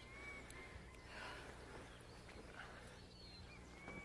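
Faint outdoor ambience in which a bird repeats a whistled call, a quick upturn into a long level whistle, at the start and again near the end.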